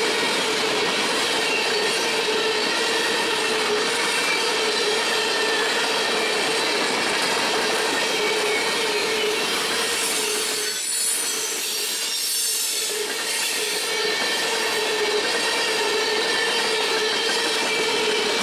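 Norfolk Southern freight train of tank cars and boxcars rolling past, with steady rail noise and a continuous wheel squeal. The sound softens briefly about eleven seconds in.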